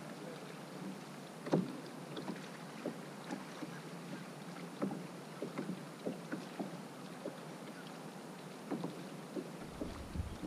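Light water lapping against a kayak's hull, with scattered soft taps and knocks at irregular intervals. A low rumble of wind on the microphone comes in near the end.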